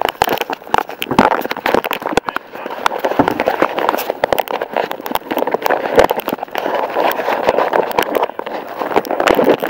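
Handling noise from a small camcorder: clothing rubs and scrapes against its microphone, with irregular clicks and knocks as it is moved about and fitted on.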